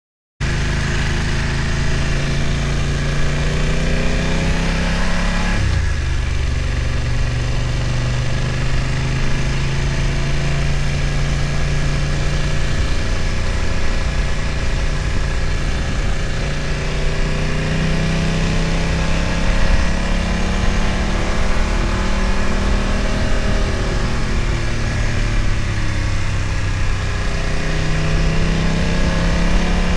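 BMW F900 XR's parallel-twin engine running as the motorcycle is ridden, with wind and road noise. The engine note drops sharply about six seconds in, then climbs again twice later as the throttle opens.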